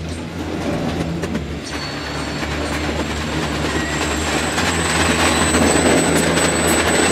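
Windsurf board planing fast through choppy water: rushing water, spray and wind buffeting the board-mounted camera's microphone, growing louder over the last few seconds as speed builds.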